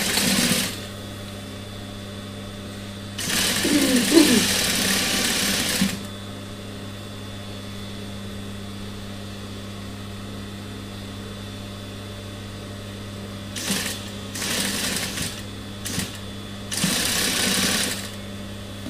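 Industrial lockstitch sewing machine stitching fleece in runs: one run of nearly three seconds a few seconds in, then several short bursts near the end, as the hood is sewn on. A steady low hum sits underneath between runs.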